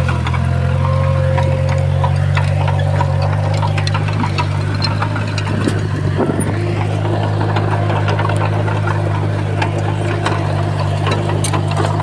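Komatsu bulldozer's diesel engine running steadily, with a thin steady whine above the engine note and scattered light clanks.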